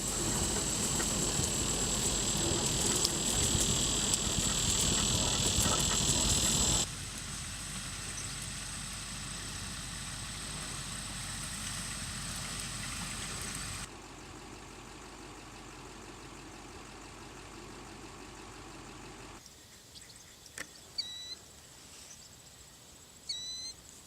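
Outdoor field ambience in several abruptly cut segments: a steady high insect trill over a low rumble, which drops sharply in level about seven seconds in and again twice later. Near the end there are a few short bird chirps.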